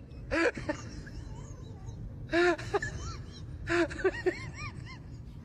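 A person laughing in short bursts of quick, rising-and-falling 'ha' sounds, three times, over a steady low rumble.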